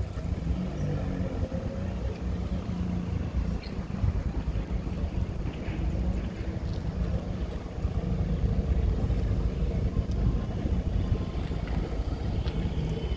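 Wind rumbling on the microphone of a moving camera, with a steady low hum of passing road traffic underneath.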